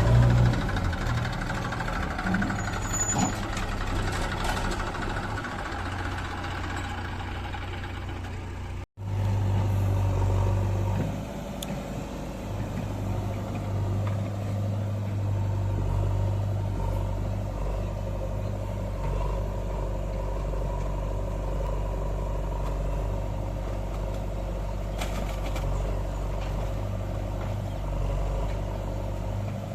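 Heavy diesel machinery engine running steadily with a low hum, with a sudden brief dropout about nine seconds in before it carries on.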